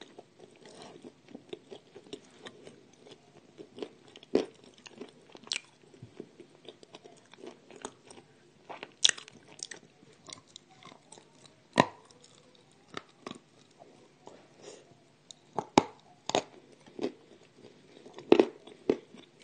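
A person biting and chewing crunchy food, with sharp crunches at irregular intervals over a softer, steady chewing.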